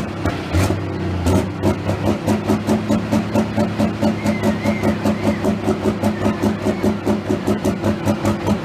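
International Harvester 1066 pulling tractor's engine idling with a lumpy, even beat of about four pulses a second, after two short throttle blips in the first second and a half.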